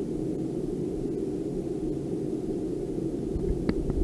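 Steady low hum with a faint hiss: ambient noise as heard through the headphones in normal mode, with noise cancelling switched off. Two faint clicks come near the end.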